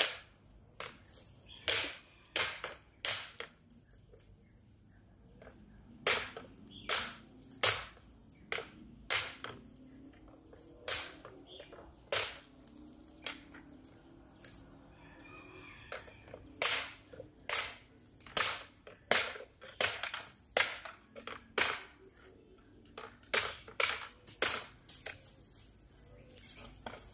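An 8-inch SUP9 steel fighting knife chopping into a bamboo pole: a long series of sharp chops, about one or two a second, broken by two short pauses.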